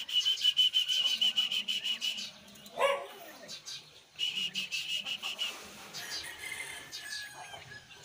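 Parrot chattering: a fast run of high chirps, a short falling call about three seconds in, then another run of chirps and fainter chatter.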